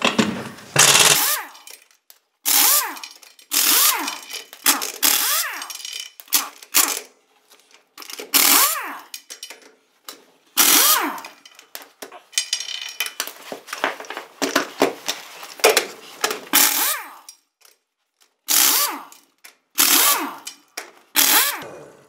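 Large pneumatic impact wrench (air wrench) hammering a heavy wheel's lug nuts loose in a dozen or so short bursts, each winding up and back down in pitch, with brief pauses between nuts.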